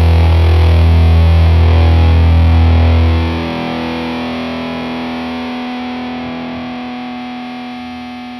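Background rock music: a held, distorted electric guitar chord. Its heavy low end drops out about three seconds in, and the rest slowly fades.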